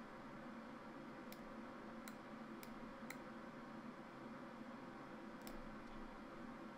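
Computer mouse clicking: five single clicks spread unevenly over several seconds, over a faint steady room hiss.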